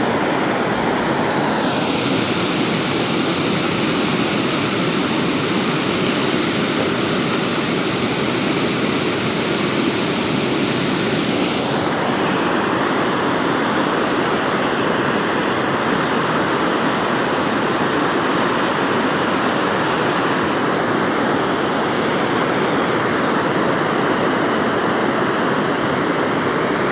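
Water rushing steadily through a dam spillway, a loud, even roar of falling and churning water; its tone shifts slightly about two seconds and again about twelve seconds in.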